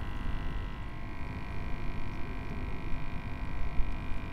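Wind buffeting the microphone as an irregular low rumble, with a faint steady high whine underneath.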